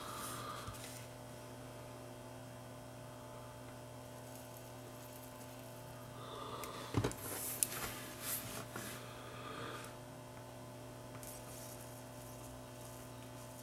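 Steady electrical mains hum, with a cluster of light clicks and handling noises from small-parts soldering work about halfway through.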